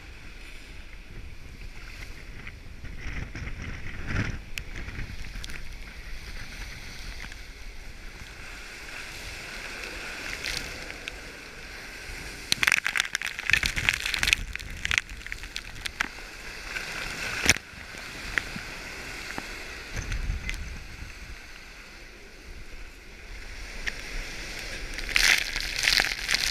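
Wind rushing over the microphone and water sloshing and splashing around a sailing boat in storm winds. There are bursts of spray and splashing about halfway through and again near the end.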